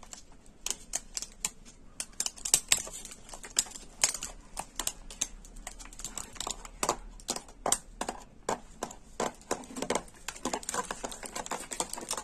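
Plastic fish-transport bag of water being handled, its plastic crackling in irregular sharp clicks.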